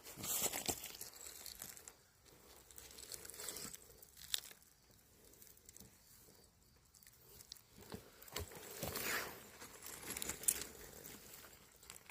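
Sheets of joss paper rustling and crumpling in irregular swells, with a couple of sharp crackles.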